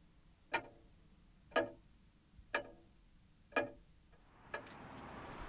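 A clock ticking about once a second, each tick a sharp click with a short ring. Near the end a steady rushing noise swells up underneath.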